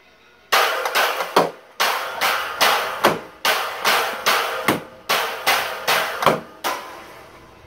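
Drumsticks beating an upturned bucket used as a drum, a run of sharp strikes at about two to three a second in an uneven rhythm, each ringing briefly; the playing stops about a second before the end.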